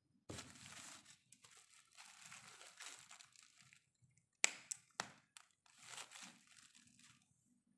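Plastic bubble-wrap packaging rustling and crinkling as it is handled, in several short spells. Two sharp clicks near the middle are the loudest sounds.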